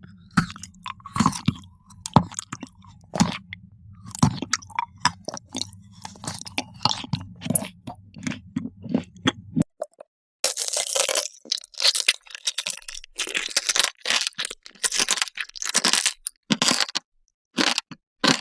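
Close-miked crunching and chewing of crisp food. Scattered crunches over a steady low hum in the first half, then denser, louder crunching after a short pause about ten seconds in.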